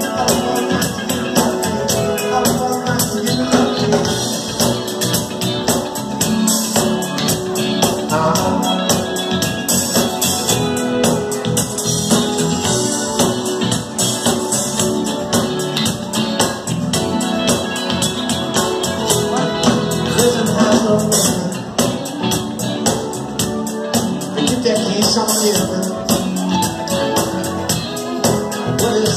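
Live band playing a song with a steady drum beat.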